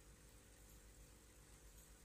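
Near silence: faint steady low hum and hiss of room tone.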